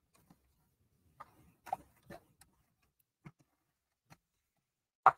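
Sparse light clicks and taps of cardstock being scored and turned on a paper trimmer, with a sharper tap near the end.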